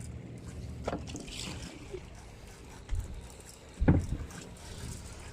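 Steady low rumble of a fishing boat at sea, with a few short knocks; the loudest knock comes about four seconds in.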